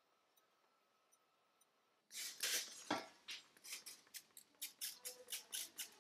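Near silence, then about two seconds in a trigger spray bottle starts squirting liquid onto the torch-heated brass of a trumpet. The squirts come in quick, repeated bursts, several a second.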